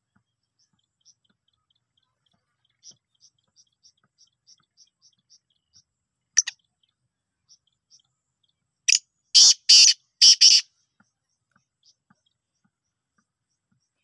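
Caged black francolin calling: a single sharp loud note, then a few seconds later a run of four loud, harsh notes in about two seconds. Before them, faint high chirps come about three a second.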